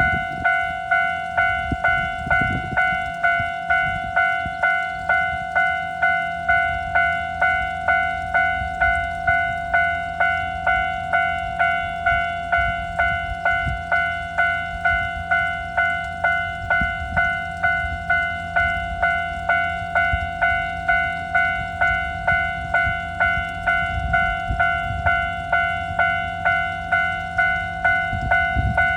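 Japanese level-crossing alarm sounding its repeated 'kan-kan' tone, about two strikes a second with each one fading before the next. A low rumble runs underneath.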